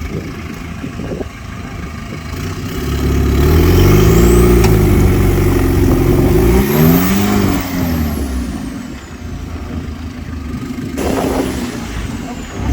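Off-road 4x4's engine revving hard under load, its pitch rising and falling twice in the middle, then dropping back to a lower, steadier running sound.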